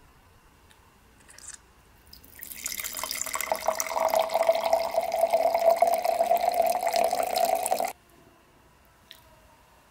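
Red wine poured from a bottle into a stemmed glass: liquid splashing into the glass with a filling tone that rises slightly as it fills. It starts about two seconds in and stops abruptly near eight seconds.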